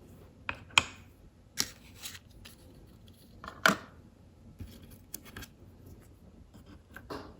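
Scattered light clicks and taps of tiny plastic miniature pieces being handled and set down on a tabletop, about half a dozen, the loudest about midway.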